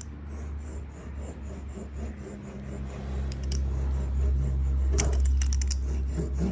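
Foil-backed sound-deadening mat being pressed and rubbed down onto a side-by-side's roof panel: a dry, irregular rubbing and scraping, with a short run of sharp crackles about five seconds in, over a steady low hum.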